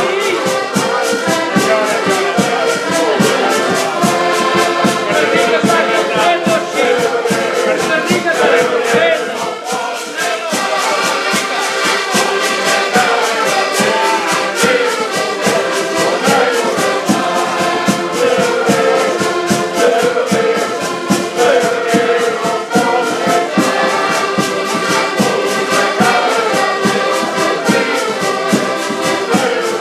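An ensemble of about eight button accordions playing a tune together in unison, with a steady, even beat.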